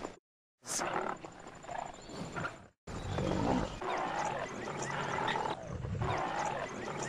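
A pride of lions growling while attacking a buffalo. The sound cuts out abruptly just after the start and again briefly about three seconds in.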